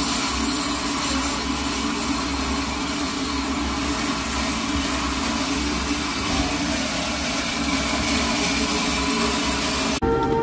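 Steady hiss of steam venting from a live steam locomotive, over a low rumble. It cuts off abruptly near the end.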